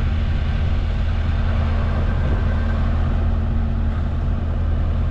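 Skid steer engine running steadily at idle, a constant low hum with no change in speed.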